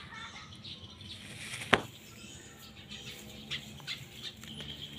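Kitchen knife worked into a young ficus stem to split it: one sharp click about two seconds in, then a few lighter clicks and scrapes.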